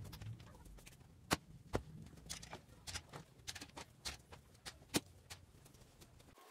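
Metal bar clamps being released and lifted off a glued-up wooden tabletop: a run of irregular sharp clicks and knocks.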